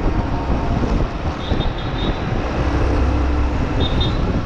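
Motor vehicle moving through city traffic: a steady engine and road rumble, with two short high chirps, one about one and a half seconds in and one near the end.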